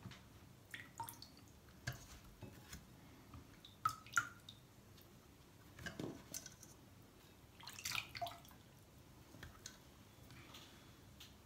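Wet quince halves being lifted out of a bowl of lemon water and set down one by one in a pot: water dripping and splashing, and soft wet knocks as each piece lands on the peels, at irregular intervals.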